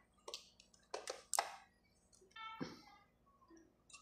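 Faint clicks and taps from multimeter test probes and fingers handling a power amplifier's circuit board: four sharp ones in the first second and a half, then a short, faint pitched sound a little past the middle.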